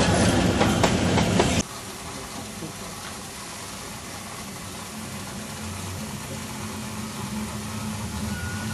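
Miniature-railway carriages clattering past over rail joints, cut off suddenly about a second and a half in. Then a much quieter steady hiss with a faint low hum from a steam locomotive standing on a turntable, slowly growing louder.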